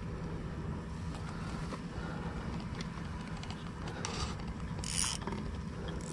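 A steady low mechanical rattle runs throughout. About four and five seconds in there are two short hissing bursts, as the baited line is dropped from a spinning reel.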